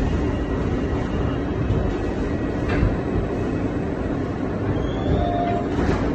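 New York City subway car running, a steady rumble of wheels on track heard from inside the car, with two sharp clicks about three seconds apart.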